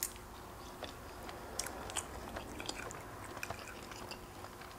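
A person chewing a mouthful of pancake close to the microphone: soft, irregular small mouth clicks.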